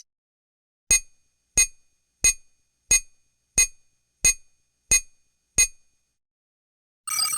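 Electronic beeper sounding eight short beeps, evenly spaced about one and a half a second, each fading quickly. Just before the end a different electronic sound begins.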